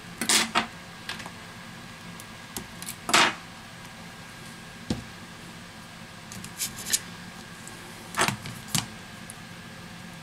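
Hands handling an iPad Air 2 display panel against the tablet's opened housing, making a handful of short, separate clicks and rustles. The loudest comes about three seconds in.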